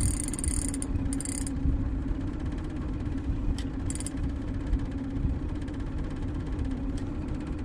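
Boat's outboard motor running steadily at low speed, a constant hum over a low rumble. Short high-pitched buzzes come in near the start and again about four seconds in.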